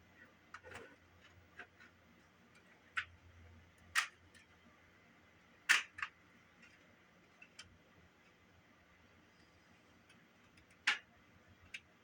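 Scattered small clicks and taps, about nine at uneven intervals, from a small screwdriver and the plastic case of a General Electric portable cassette player being taken apart; the sharpest come a little before halfway and near the end. A faint steady hum lies underneath.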